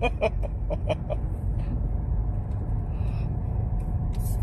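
Car cabin noise while driving slowly in traffic, a steady low road and engine hum. In the first second a quick run of about five short pitched sounds, then only the hum.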